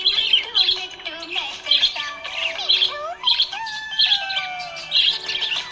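Budgerigars chirping in quick clusters of short high chirps, over background music with gliding and held tones.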